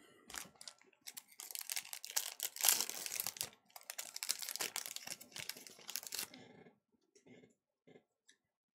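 A Pokémon Evolutions booster pack's foil wrapper being torn open and crinkled by hand, a dense crackling that starts about a second in and lasts about five seconds, with a brief pause in the middle. A few faint soft ticks follow near the end as the cards are handled.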